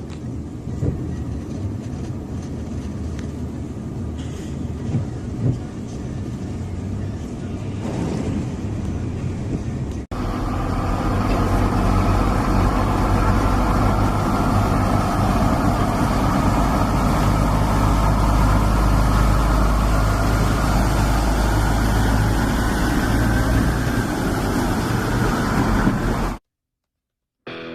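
Semi truck diesel engines running while driving through floodwater, with a steady low engine hum under a noisy wash. About ten seconds in, the sound cuts abruptly to a louder, steady truck engine and rushing noise, which stops suddenly near the end.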